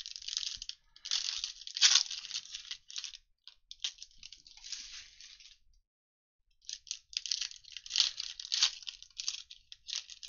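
Foil trading-card pack wrappers crinkling and tearing open in bursts of rapid crackles, broken by about a second of quiet just past the middle.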